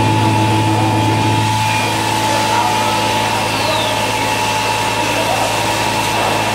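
CNC router running over a wood panel: a steady machine hum under a high, steady whine, with a short falling whine a few seconds in.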